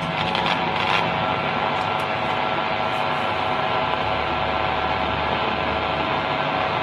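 Steady hum and static hiss from the speaker of an LA4440 amplifier board under test, with a few brief crackles about the first second.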